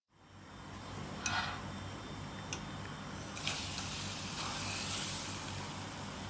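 Food sizzling in a pan over a steady low hum, with a few light clicks.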